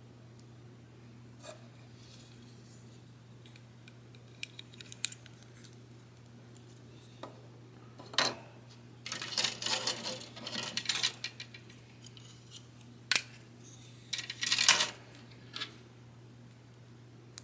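Small snap-fit plastic model-kit parts clicking and clattering as they are handled and pressed together: a few light clicks, then a sharp click about halfway in followed by a couple of seconds of clattering, another sharp click, and a second short clatter near the end.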